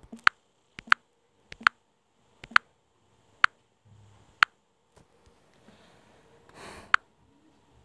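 A series of sharp clicks from taps and button presses on a Samsung Android phone as it is navigated. There are about one or two a second, the first four each doubled by a softer click just before. A short breathy sniff comes just before the last click near the end.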